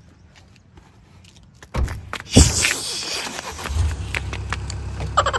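A person getting out of a car at its open rear door: a sudden heavy thump about two and a half seconds in, then a steady low rumble.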